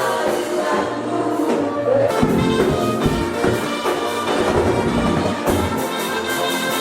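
Music with brass instruments to the fore, its texture changing about two seconds in.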